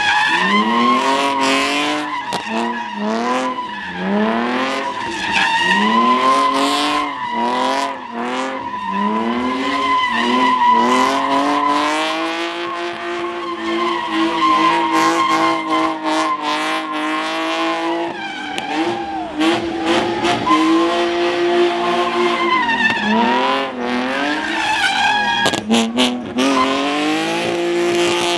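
Car engine revving hard and repeatedly, about once a second, then held at high revs for several seconds at a time, while its tyres squeal steadily through a drift.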